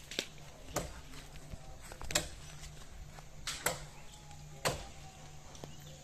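Sharp chopping strokes of a blade into a coconut tree, several single hits spaced unevenly a second or so apart.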